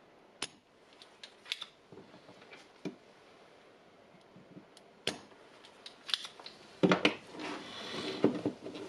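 Spring-loaded desoldering pump snapping, a handful of sharp separate clicks as its plunger is cocked and fired to suck solder off the battery's BMS board joints. Near the end, louder knocks and rustling as the board and pack are handled.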